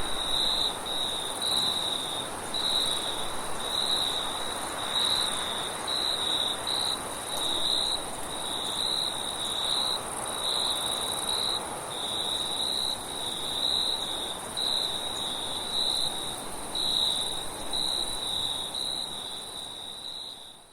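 Crickets chirping in an even rhythm of about two chirps a second over a continuous higher insect trill, with wind rising and falling softly beneath. The sound fades out at the very end.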